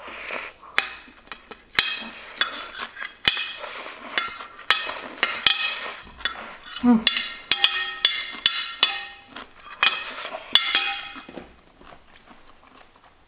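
Metal spoon scraping and clinking against a large ceramic plate in many quick strokes, scooping up the last bits of food, with slurping from the spoon; the scraping dies away about two seconds before the end.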